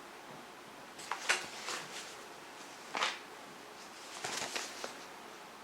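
Magazine pages being turned and handled: a few short paper rustles and swishes, about a second in, at three seconds, and again around four seconds.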